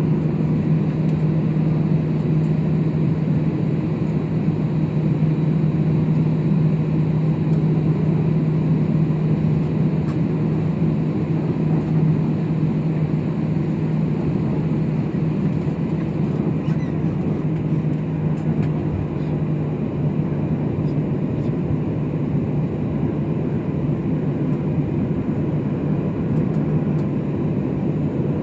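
Jet airliner's wing-mounted turbofan engines running at taxi power, heard inside the cabin as the plane taxis toward takeoff: a steady rumble with a constant low hum.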